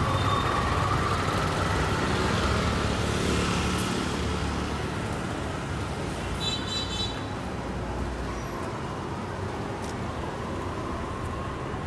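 Busy street traffic noise with a low engine rumble that dies away about eight and a half seconds in. Around six and a half seconds in there is a short, high-pitched horn toot.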